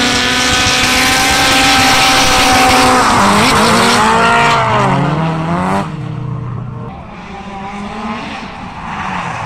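Two drift cars sliding in tandem, engines held at high revs, with tyres squealing and hissing. About three seconds in, the engine note swings down and back up. Near six seconds the sound drops away to fainter engine and tyre noise.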